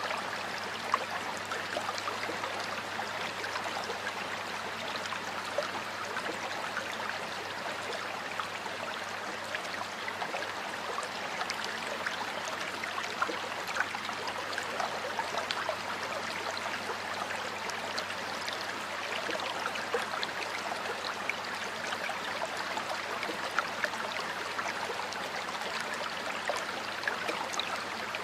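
Water flowing steadily in a stream or small river, a constant rushing with many small splashes and trickles through it.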